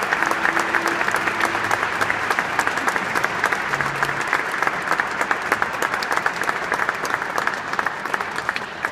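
Audience applauding, dense and steady, easing off slightly near the end.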